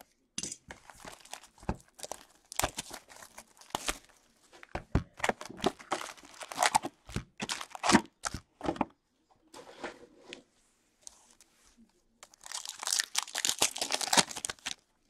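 Hands opening a hobby box of Upper Deck Extended Series hockey cards and ripping open the packs: irregular sharp crinkles and tears of wrapper and cardboard, with a denser stretch of tearing near the end.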